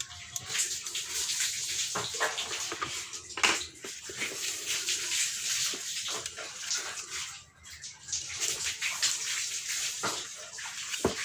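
Power tools and their cords being handled in a plastic tool case: steady rustling with many light clicks and knocks of metal and plastic.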